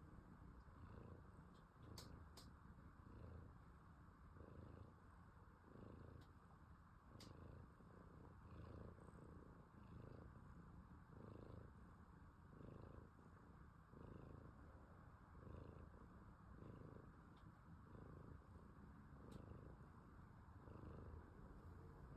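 Domestic cat snoring faintly, one soft rasping breath about every second and a half in an even rhythm.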